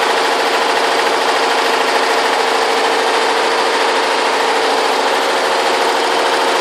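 Multi-head computerized embroidery machine stitching at high speed: a steady, rapid mechanical rattle of the needles with a constant hum underneath.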